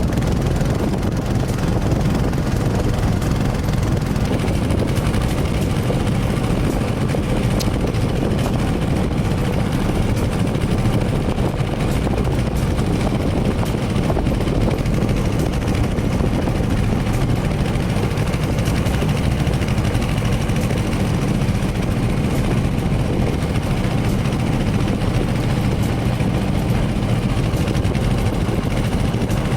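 Small engine of a ketinting longtail boat running steadily under way, a constant loud drone.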